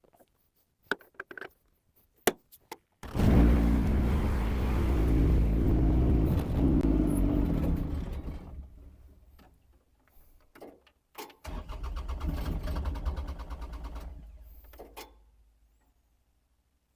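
Small diesel engine, the Yanmar in a mini excavator, being started twice after running out of fuel. A few light clicks come first. Then it bursts into sound for about five seconds and dies away, and a second try a few seconds later runs for about three seconds and dies away again.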